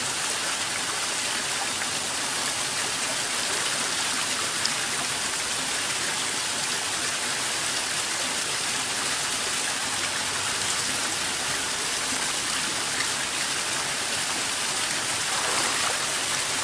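Steady rush of water from a small mountain brook, its little waterfall and plunge pool pouring over the rocks.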